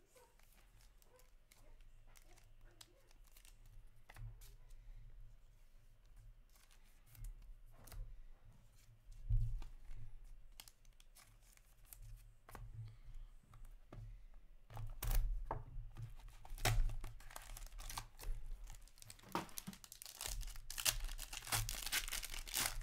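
Hands handling trading cards and plastic card holders: scattered clicks and rustles over a faint low hum. Near the end, plastic wrap is torn and crinkled off a card box.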